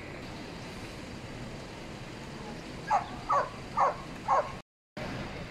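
A dog barking four times in quick succession, about half a second apart, starting about three seconds in.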